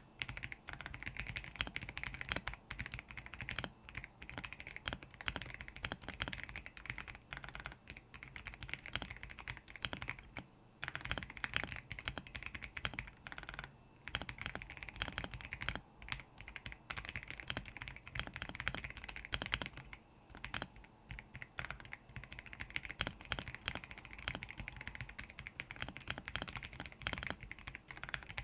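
Continuous typing on a Royal Kludge R75 mechanical keyboard fitted with lubed RK Brown tactile switches: a dense run of keystroke clacks, with a couple of brief pauses.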